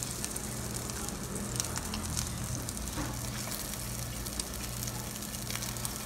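Pork belly sizzling on a charcoal grill, the fat crackling with many small pops, over a low steady hum.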